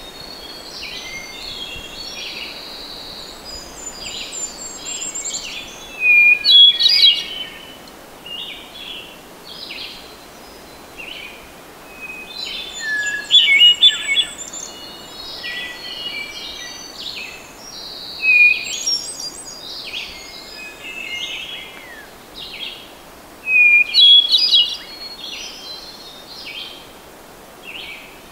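Hermit thrush singing: four loud song phrases about five to six seconds apart, each opening on a held note and breaking into a quick run of higher notes, with quieter bird calls filling the gaps.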